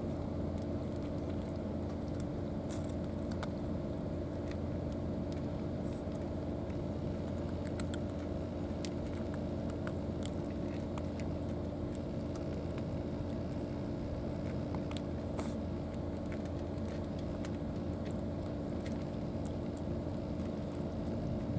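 A motor running steadily, a constant low drone with a few fixed tones, with scattered faint clicks over it.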